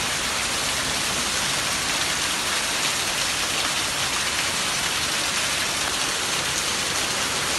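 Heavy rain falling steadily, a constant hiss of drops on paving and standing water, mixed with a stream of runoff pouring off the roof edge and splashing onto the ground.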